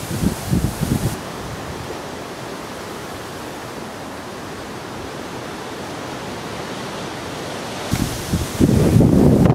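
Tropical-storm wind buffeting the microphone in gusts, which gives way about a second in to a steady, even rushing hiss. The gusty buffeting returns near the end.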